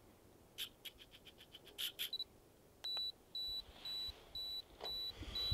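A quick run of sharp clicks, then a high electronic beep repeating about twice a second: a security alarm or sensor going off, which the explorers take as the sign that they have been detected.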